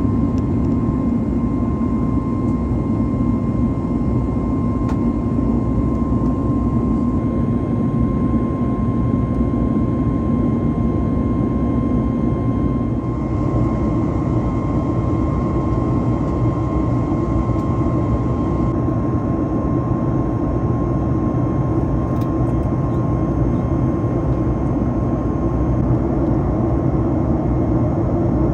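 Cabin noise of a Boeing 737-9 MAX in flight: the steady rush of its CFM LEAP-1B jet engines and airflow, with a thin steady tone running through it. The tone of the rush shifts slightly about halfway through.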